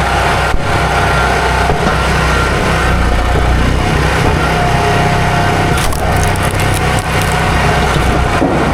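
Gas chainsaw running steadily under load, cutting into a tree stump low to the ground.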